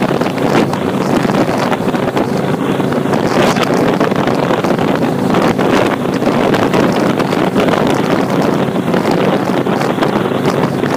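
Kawasaki Vulcan 800's V-twin engine running steadily at riding speed through Vance & Hines Straight Shots pipes with the baffle plug removed, mixed with wind noise on the microphone.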